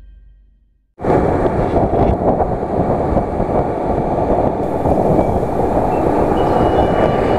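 Intro music fades out into a moment of silence. About a second in, loud wind buffeting and road rumble start abruptly on the microphone of a camera riding on a moving vehicle. A faint steady tone joins near the end.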